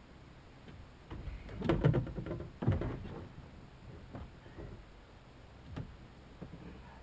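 Knocks and rattles of gear being handled on the floor of a small open boat, a clattering cluster about one to three seconds in with two louder bangs, then a few lighter clicks.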